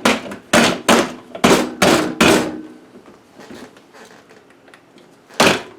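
A run of six heavy knocks, about two a second, each ringing briefly, then a pause and one more knock near the end.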